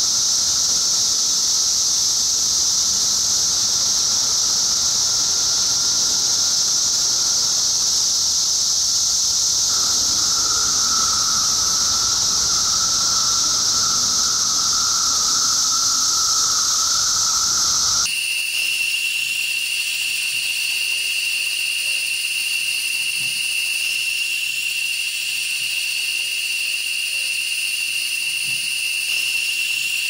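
Loud chorus of periodical cicadas: a steady high-pitched hiss with a fainter, lower steady drone beneath it. About eighteen seconds in, it cuts abruptly to large tropical rainforest cicadas calling, one steady shrill tone over a thin high hiss.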